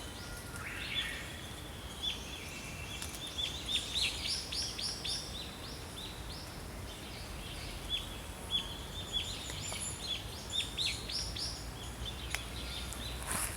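Small songbirds chirping in quick runs of short, high notes, over a steady low outdoor background rumble.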